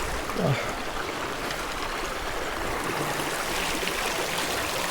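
Steady rushing noise, like running water or wind on the microphone, with a brief falling vocal sound about half a second in.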